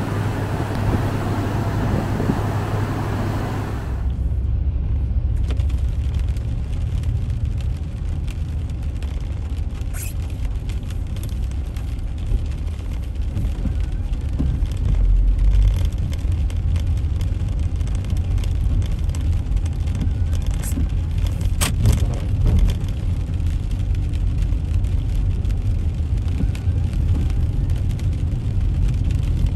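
Car driving: a steady low rumble of engine and road. A brighter hiss stops about four seconds in, and a few light clicks come later.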